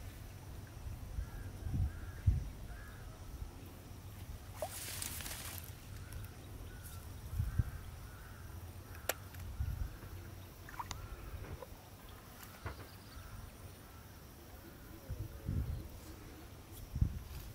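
Outdoor ambience: faint bird calls repeat in the background over a low, uneven rumble. A short rustling noise comes about five seconds in.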